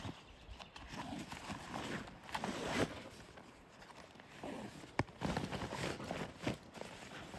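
Rustling and bumping of backpacks and nylon stuff sacks being handled and packed, with footsteps on dry grass; a sharp click about five seconds in.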